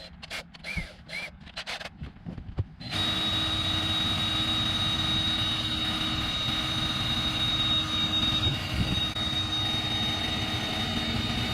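A few small handling clicks, then about three seconds in a power drill starts and runs steadily with a high, constant whine, drilling a new mounting hole.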